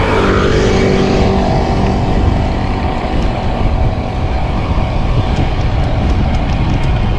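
Wind rushing over the microphone of a camera carried on a moving road bicycle, a loud, steady rumble. A motor vehicle's engine hum fades out over the first couple of seconds.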